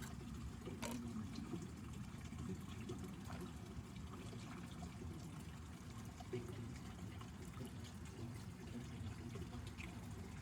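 Faint, steady trickle of pond water, with a few small scattered clicks and scrapes.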